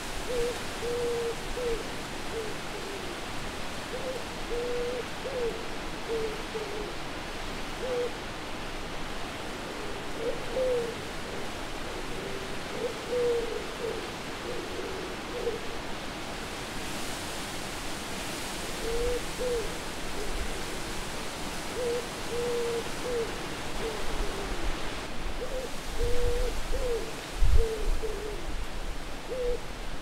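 Owl hooting in short clusters of mid-pitched hoots, repeated every few seconds over a steady wind hiss. A gust raises the hiss for several seconds in the middle, and a few low rumbles come near the end.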